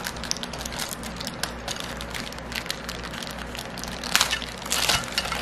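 Clear plastic packaging bag crinkling and crackling as hands work the item out of it, with louder rustles about four and five seconds in.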